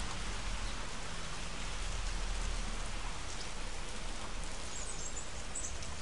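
Heavy rain falling on a street, a steady, even hiss.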